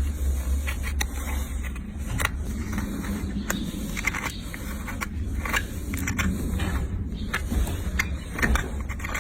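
Hoof-trimming tools working on a horse's hoof: irregular scrapes and sharp clicks as horn is cut and pared, over a steady low rumble.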